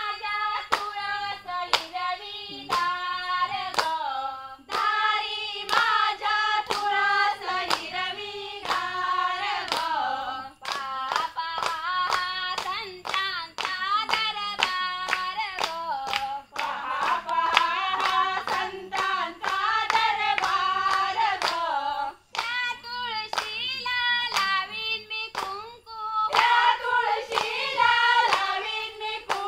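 A group of women singing a Konkani folk song together, with steady rhythmic hand clapping at about two claps a second.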